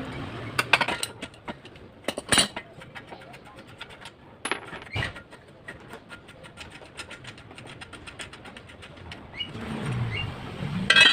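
Scattered light clicks and a few sharper knocks of hand work on bicycle parts, with a run of quick, faint ticks in the middle.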